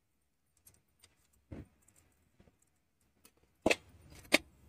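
A steel spoon knocking against steel bowls while spices are spooned in: a soft knock about a second and a half in, then two sharp clinks close together near the end, with faint clicks between.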